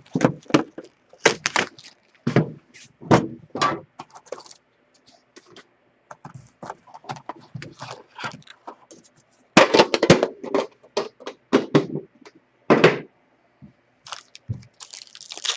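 Handling sounds of opening a tin of trading card packs: an irregular run of clicks, knocks and scrapes, with a denser patch of rustling and knocks about ten seconds in.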